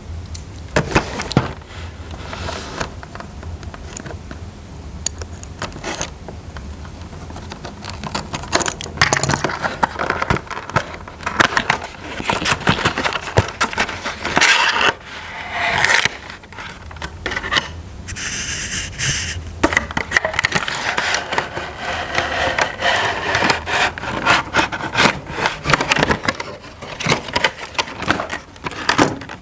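Hands unboxing and handling toy packaging and parts: irregular scraping, rustling and clicking, busier from about a third of the way in.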